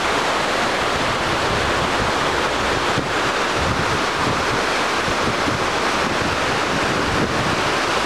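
Steady rush of a man-made waterfall: a broad sheet of water pouring over a ledge and splashing into a pool below.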